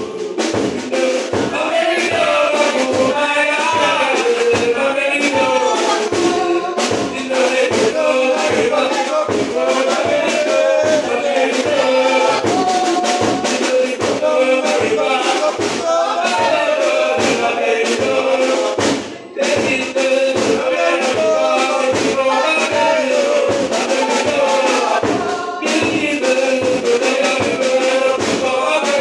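Church spiritual singing: a man leads the song through a microphone and other voices join in, over a steady drumbeat of about two strikes a second. The sound drops out briefly about two-thirds of the way through.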